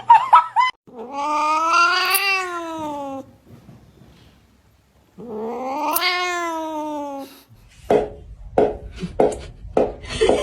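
A domestic cat giving two long, drawn-out yowls, each rising then falling in pitch. From about eight seconds in come short repeated sounds, less than two a second.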